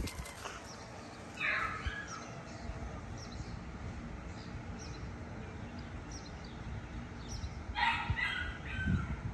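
Small birds chirping over and over in the background, with two louder animal calls: one about a second and a half in and one near the end.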